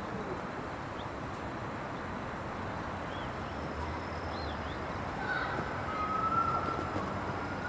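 Steady outdoor background noise, with a few faint high chirps around the middle and a thin held tone that starts about five seconds in.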